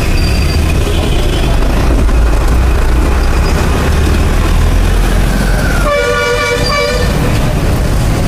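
City road traffic: a steady low din of passing engines, with a loud vehicle horn blast lasting about a second some six seconds in and fainter honks near the start.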